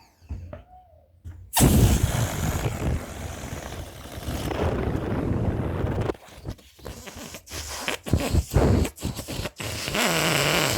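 Rubber balloon letting air out through its neck. A loud rush of escaping air starts suddenly, breaks into a string of short sputtering flaps, then runs on as a steady rush with a low fluttering buzz.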